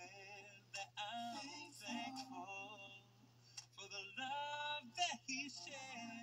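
A song with singing plays, over a steady low hum.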